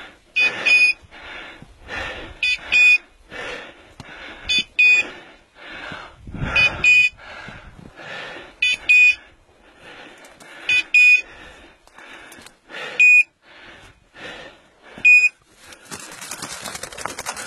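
Electronic beeper collar on a hunting dog giving short high pitched double and triple beeps about every two seconds, with softer rustling between them. A steady rushing noise comes in near the end.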